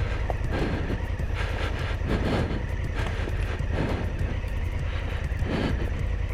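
Large twin-cylinder adventure motorcycle engine running steadily at low speed on a loose gravel track, heard as a constant low rumble with irregular swells of noise every second or two.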